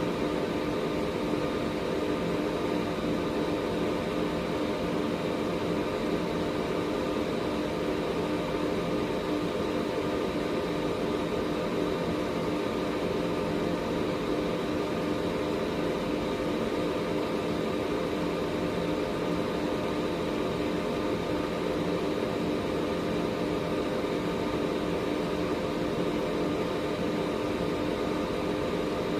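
Air purifier running steadily: an even rush of air from its fan, with a low hum and a faint high whine held unchanged throughout.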